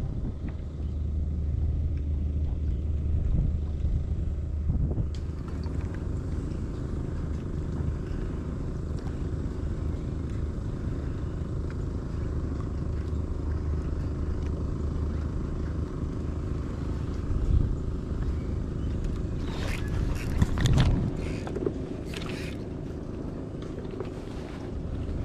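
Wind buffeting the microphone of a camera on a kayak on open water: a steady low rumble. About twenty seconds in, a few sharp clicks and knocks cut through it.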